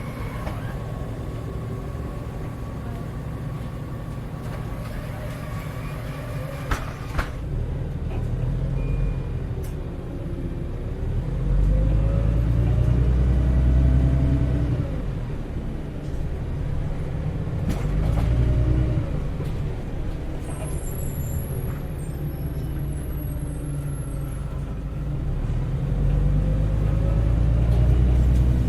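Heuliez GX317 LPG city bus heard from on board: the engine rumbles along and swells several times as the bus accelerates, its note rising and falling through the Voith three-speed automatic. There is a brief sharp noise about seven seconds in.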